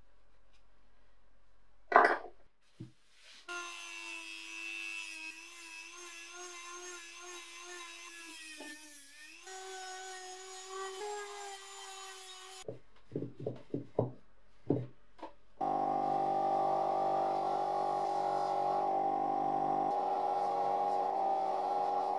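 A sharp knock, then a handheld rotary tool spinning a felt polishing wheel against the iron's metal post, its motor pitch wavering as it loads for about nine seconds. After a few knocks, a louder bench-mounted abrasive buffing wheel runs steadily from about a third of the way from the end, with a small metal part held against it.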